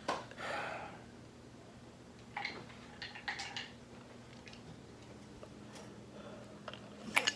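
Faint scattered clicks and knocks of things being handled, over a low steady hum.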